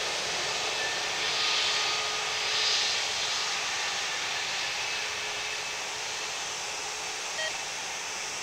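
Airbus A320neo's CFM LEAP-1A turbofan engines running at taxi power: a steady hiss with a faint whine, easing off slightly as the aircraft rolls away.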